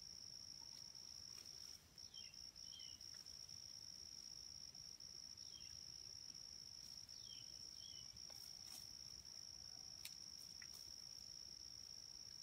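Faint, steady, high-pitched insect drone, cricket-like, held without a break, with a few short, faint falling chirps scattered through it.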